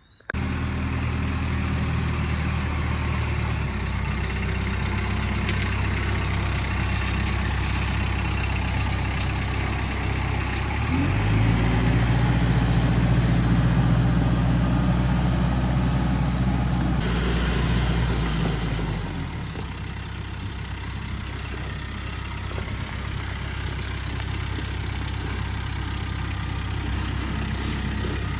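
Engine running steadily at idle, revving up about eleven seconds in, holding at higher speed for several seconds, then dropping back to idle.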